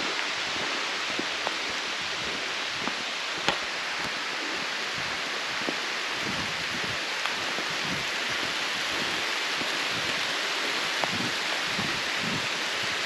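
A steady even hiss on a forest walk, with soft irregular low thumps of footsteps on the trail and a few sharp clicks, the loudest about three and a half seconds in.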